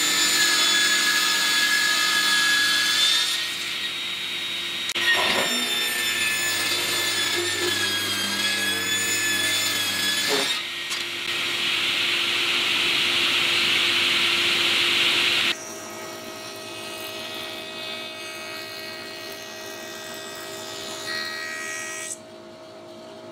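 Sliding table panel saw running with a steady blade whine, ripping a timber board in several passes, with hissing noisier stretches while the blade is in the wood. About two-thirds of the way in this gives way to a quieter, steady machine hum.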